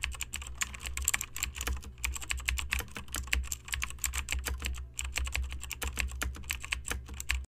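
Rapid, irregular computer-keyboard typing clicks, used as a sound effect for text typing onto the screen, over a steady low hum. The typing cuts off suddenly near the end.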